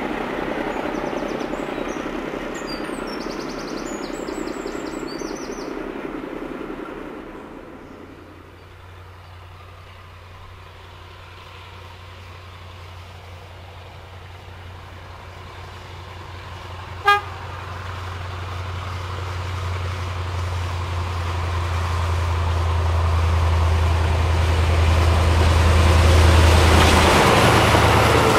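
A passing train's rolling noise fades away. Then a Western Region diesel-hydraulic locomotive approaches with a low engine drone that grows steadily louder, and sounds one short horn toot about halfway through, the warning given at a whistle board.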